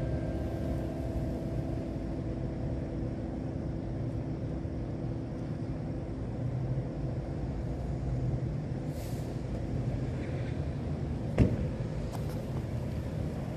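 The last notes of the carillon's bronze bells ring away and die out over the first few seconds, leaving a steady low rumble of distant traffic. A brief hiss comes about nine seconds in, and a single sharp knock about eleven seconds in.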